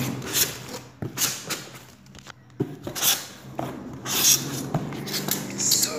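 Cardboard, foam packing and plastic wrap rustling and scraping as a packed box is opened by hand, in several short irregular bursts.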